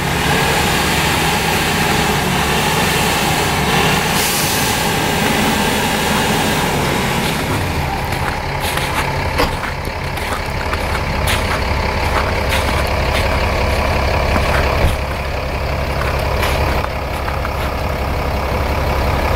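Engines of off-road vehicles running in deep snow: a Mitsubishi L200 pickup driving into the snow bank beside the road, with a Mercedes Unimog truck idling close by. A steady engine rumble that grows heavier in the last few seconds, with scattered knocks from about eight seconds in.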